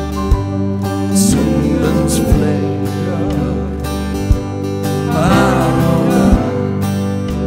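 Live band playing a slow hymn, with acoustic guitar, grand piano, bass and drums. A low drum beat falls about every two seconds, and a lead melody wavers in pitch above the accompaniment.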